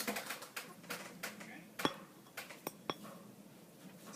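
Scattered sharp clicks and light metallic clinks, the louder ones ringing briefly, from tools and small parts being handled while removing the road wheels of an RC model tank.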